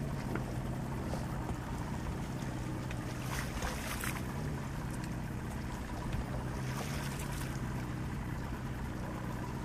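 Boat's outboard motor running slowly at trolling speed, a steady low hum, with two brief rushes of noise about three and seven seconds in.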